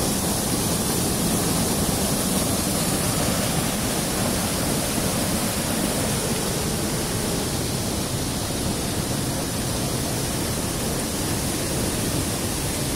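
A flooded river's rapids rushing and churning as white water past a bridge between two dams: a steady, even rush of fast-flowing floodwater, swollen after a cloudburst.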